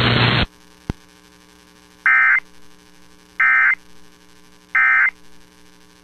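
Emergency Alert System end-of-message signal: three short, harsh digital data bursts about 1.3 seconds apart, marking the close of the EAS test. Before them a loud hiss cuts off about half a second in, followed by a single click.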